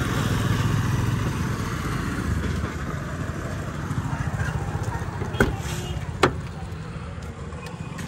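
Steady low rumble of street traffic with motorcycles passing. About five and six seconds in come two sharp clicks, the rear door's handle and latch of a Chevrolet Tavera being opened.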